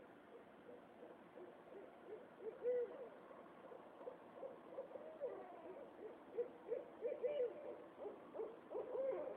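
A series of short hooting calls, like an owl's, coming more often and louder toward the end.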